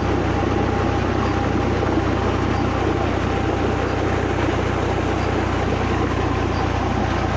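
A heavy jet of water gushing steadily from a tube well's discharge pipe and splashing into a cement tank, over the steady running of the tractor diesel engine that drives the pump.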